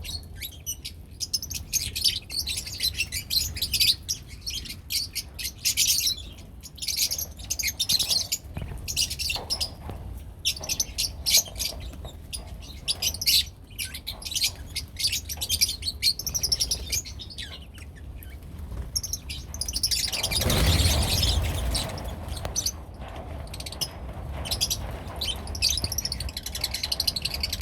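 Caged lovebirds chirping and tweeting in quick, high, rapid calls, with a louder burst of noise about twenty seconds in that lasts some two seconds.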